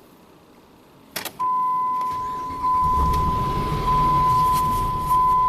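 A click, then a steady high beep tone begins, and about a second later the 2005 Ram 2500's 5.7 Hemi V8 cranks and starts running, with a pressure transducer in place of cylinder 6's spark plug so that cylinder makes no power.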